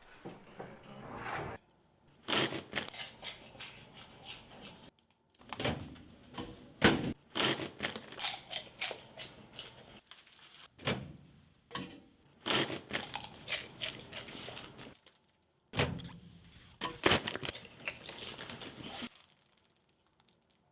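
Paper popcorn bag rustling and crinkling, with sharp crackles and thunks, in several dense bursts that start and stop abruptly.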